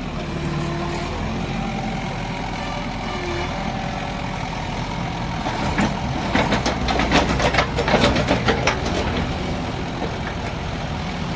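Perkins diesel engine of a JCB 51R mini excavator running steadily, with a run of rapid, irregular knocks for about three seconds around the middle.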